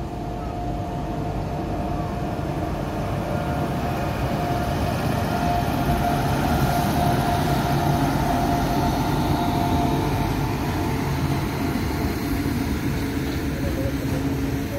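Electric locomotive approaching and passing close by, with a steady whine that grows louder over the first several seconds. It is followed by the rolling rumble of a goods train's covered wagons going past.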